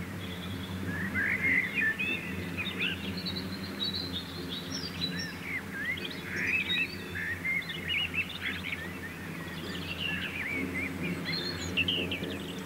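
Many small birds chirping and twittering, their short calls overlapping throughout, over a steady low hum.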